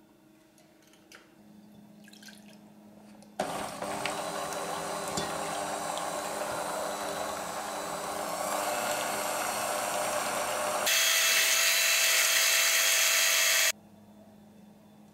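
Siemens myMix 300 W electric hand mixer beating crepe batter in a stainless steel bowl: it starts suddenly about three seconds in, runs steadily, steps up louder about eleven seconds in, and stops abruptly near the end.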